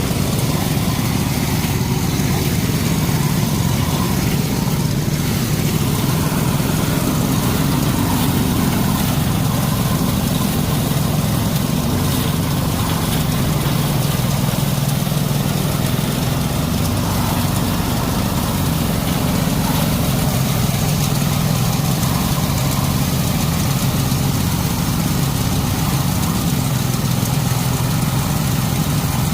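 A small engine running steadily at an even speed, with no pauses or changes in pitch.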